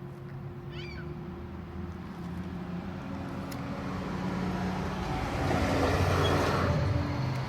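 A motor vehicle passing: a low engine hum under a rising rush of noise that is loudest about six seconds in, then begins to fade. A brief high chirp sounds about a second in.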